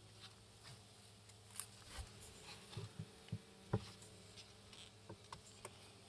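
Honeybees buzzing faintly and steadily, with a scatter of light knocks and taps in the middle of the clip, the sharpest about three and a half seconds in.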